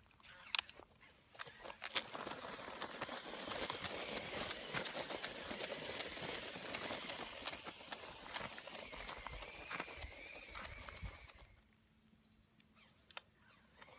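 Motorized Lego Technic buggy driving over loose gravel: the stones crunch and clatter under its tyres in a dense run of clicks, with a faint whine from its Lego L-motors. About eleven seconds in the clatter stops abruptly, leaving only a few light clicks as it runs on grass.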